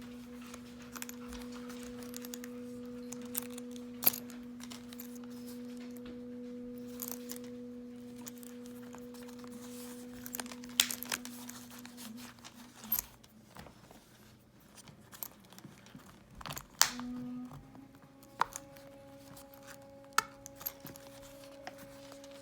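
Paper pages of a small travelers notebook being turned and handled, with light crinkling and occasional sharp taps, over soft background music of long held tones that shift to a new chord near the end.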